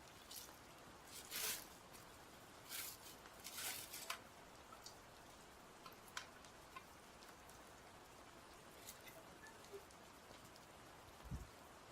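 Faint handling sounds of packaging being unpacked: several short crinkles and rustles of plastic and cardboard in the first few seconds, then scattered small ticks and a soft low thump near the end.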